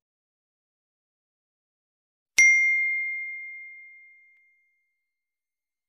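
A single bright notification-bell ding, about two and a half seconds in, that rings on one clear tone and fades away over about two seconds: the bell sound effect of an animated subscribe button.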